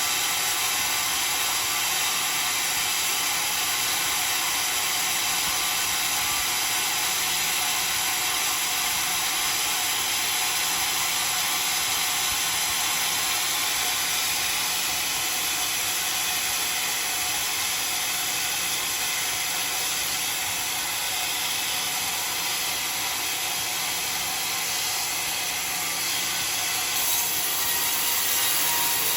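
Homemade sawmill's saw blade cutting through a dry, very hard acacia log: a steady, high-pitched running sound that holds without a break.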